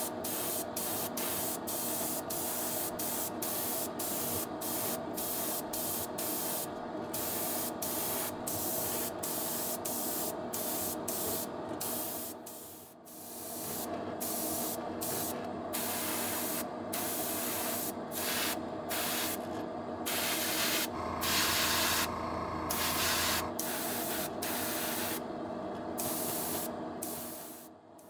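A 0.3 mm double-action airbrush spraying thinned lacquer paint at about 18 psi, its hiss coming in short bursts about twice a second as the trigger is worked, over a steady hum. For a couple of seconds past the middle, a deeper hum grows louder under the spray.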